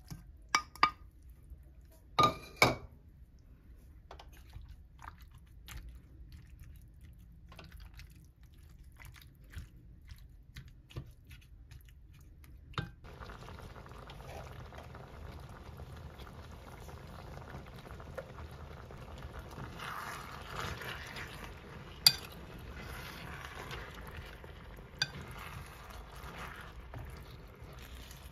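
Home-kitchen cooking sounds: utensils clink and clatter against pots and dishes, and about 13 seconds in a steady sizzle of food cooking in a pan starts and keeps going under occasional sharp clinks.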